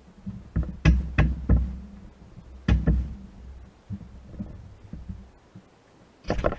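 Steel-on-steel knocks and clinks as a pivot pin and spacer are handled and fitted through a hydraulic cylinder's eye and its mounting bracket. A quick run of four knocks comes about a second in, a sharp single knock near three seconds, and a short clatter near the end.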